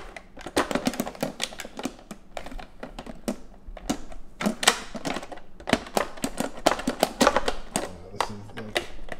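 Plastic blender lid being fitted and latched onto a blender jar filled with frozen pineapple chunks: a quick, irregular run of sharp plastic clicks and clatters.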